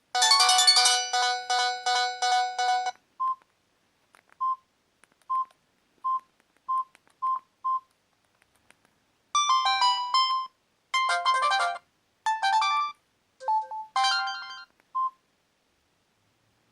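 Samsung E1120 mobile phone playing its preloaded ringtones one after another. First comes a dense electronic tune of about three seconds, then seven short single beeps that come faster and faster. After a pause, another melodic ringtone plays in short phrases and stops about fifteen seconds in.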